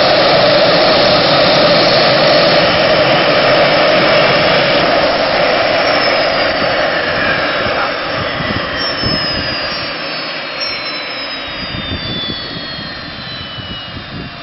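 Rolls-Royce Allison 250-C18 gas turbine of a jet turbine motorbike running with a loud roar, then winding down. From about six seconds in, high whines fall steadily in pitch as the roar fades.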